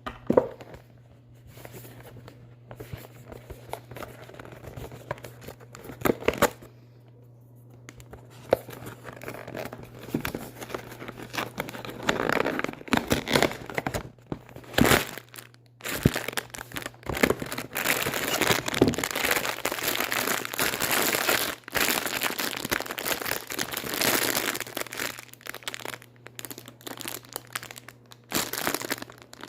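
Plastic packaging crinkling and tearing as a boxed toy is unwrapped, in irregular rustles and sharp snaps that get busier and louder from about halfway through. A faint low hum runs underneath.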